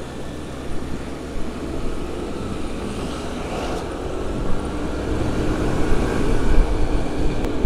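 Riding on a motor scooter: steady wind noise on the microphone over the engine and road rumble, slowly growing louder.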